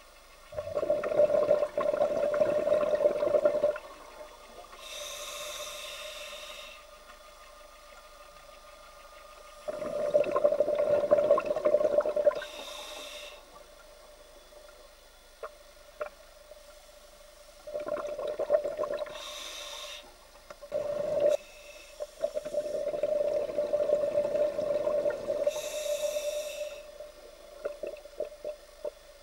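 Scuba diver breathing through a regulator underwater: long bursts of exhaled bubbles alternating with a shorter, higher hiss from the demand valve on each inhale, a breath about every eight seconds, four breaths in all.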